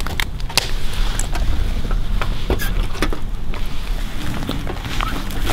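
Wire-mesh live trap rattling and clinking as it is handled in brush, a few sharp metallic clicks among leaves rustling. A low wind rumble on the microphone runs underneath.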